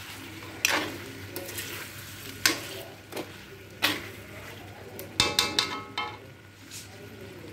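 Metal spoon stirring chicken in a wok, scraping and knocking against the pan every second or two, with a quick run of ringing metallic clinks a little after five seconds in, over the soft sizzle of the chicken cooking in its gravy.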